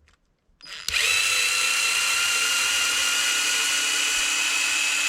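Handheld power screwdriver spinning up about a second in and then running steadily at one speed, backing out screws from an RC truck's chassis.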